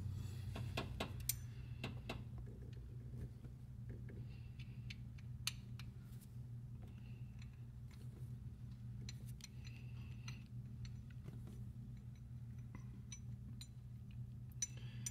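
Faint scattered clicks and light metallic taps as mounting bolts are threaded by hand into a power steering pump and its bracket, over a steady low hum.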